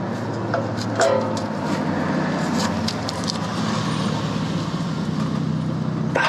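Steady low rumble of a motor vehicle engine running, with a couple of faint metallic ratchet clicks about half a second and a second in.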